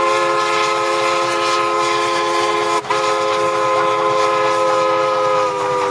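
A train horn sounding one long held chord of several steady tones, broken off for an instant about three seconds in and dipping slightly in pitch near the end.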